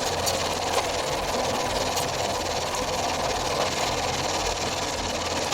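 Engine of a hydraulic log splitter running steadily, a faint click or two over the steady noise.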